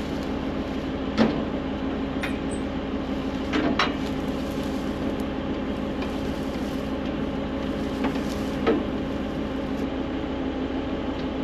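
A steady machine hum, with a handful of short, sharp metallic clanks and knocks scattered through it, in keeping with fueling farm machinery.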